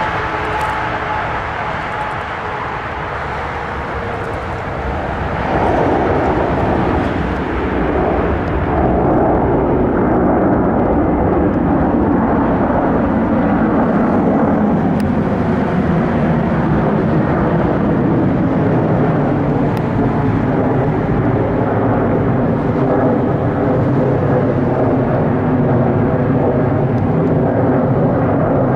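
Airplane engine noise, steady and loud, growing louder about five seconds in and again a few seconds later, then holding.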